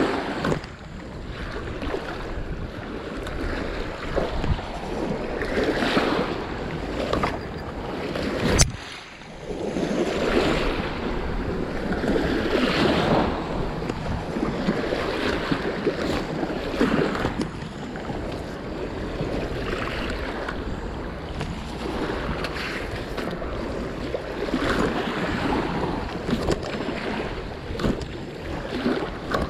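Small waves washing and splashing against a rocky shoreline, rising and falling every second or two, with wind buffeting the microphone. A single sharp click about eight or nine seconds in.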